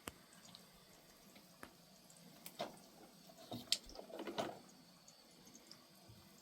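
Faint drips and small splashes of water with a few light clicks, busiest in the middle.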